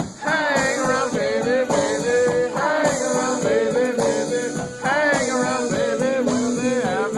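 A live band playing a song with a voice singing over a steady beat, recorded on a phone's microphone.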